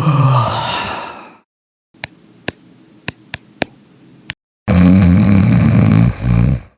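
A man yawning loudly: a long vocal yawn falling in pitch that trails off in the first second or so. Then a few sharp clicks over a faint hiss, and a second long, low, loud yawn lasting about two seconds near the end.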